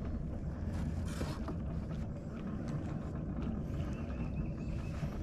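Boat motor running steadily while trolling for crappie, a low, even rumble.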